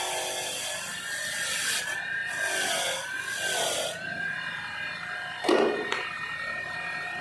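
Continuous scraping and rubbing noise with a steady high whine, and one sharper knock about five and a half seconds in.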